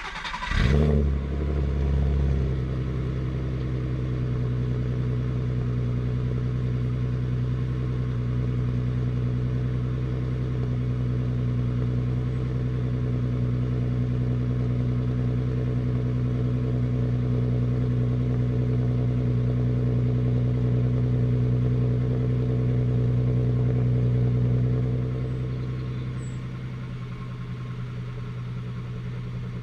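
Mk4 Golf R32's 3.2-litre VR6 engine, through a Milltek exhaust, catching with a short rev flare at the very start and then settling into a steady idle. About 25 s in the idle drops lower and quieter.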